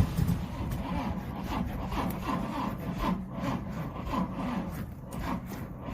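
The 1970 Volvo 145's four-cylinder engine labouring to run after a hard start, giving an uneven rasping rhythm of about two to three strokes a second, the sound of an engine that has sat too long and struggles to catch.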